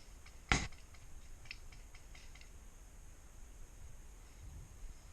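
A single sharp crack about half a second in, typical of an airsoft gun firing one shot, followed by a few faint clicks.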